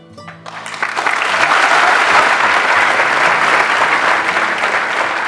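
Large audience applauding. The clapping starts about half a second in, swells to full within a second and then keeps on steadily.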